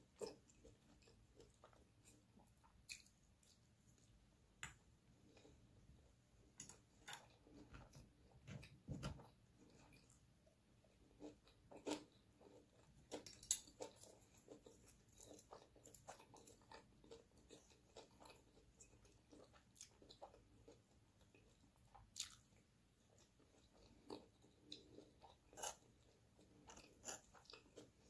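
Close-miked eating sounds: soft chewing and mouth sounds of rice, sausage and cucumber, broken by scattered sharp clicks and crunches.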